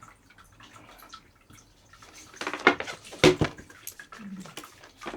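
Scattered light clicks and taps of things being handled, then a cluster of sharp knocks about halfway through, two of them loud and close together.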